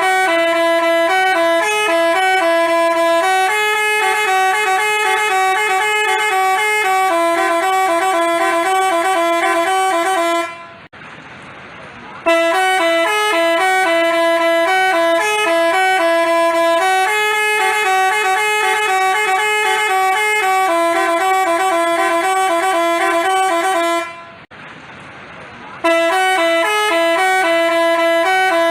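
Basuri telolet multi-tone horn playing a jingle of quickly alternating notes. It breaks off twice for under two seconds and starts the same tune again.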